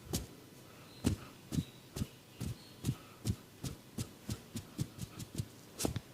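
Percussive massage strokes: soft dull thuds landing at a steady rhythm of about two to three a second, each with a short slap on top.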